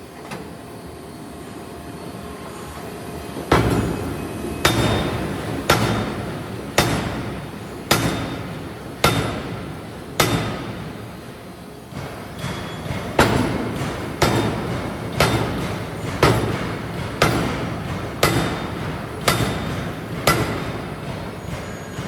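Forging hammer striking a steel workpiece in a steady series of heavy blows, about one a second, each with a short metallic ring. The blows begin about three and a half seconds in and stop for about two seconds in the middle before going on at the same pace.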